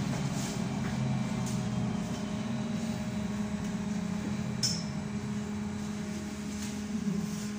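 Riding inside a BKM 321 trolleybus: a steady electric hum of the drive, with running noise under it and a brief high hiss about four and a half seconds in.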